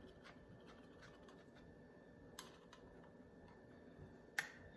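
Near silence: room tone with a few faint clicks, and one sharper click near the end.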